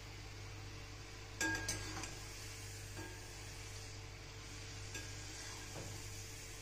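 Sweet dough pieces (kadakani) deep-frying in hot oil with a steady sizzle, while a metal spoon clinks and scrapes against the pan, sharpest about a second and a half in, then a few lighter taps.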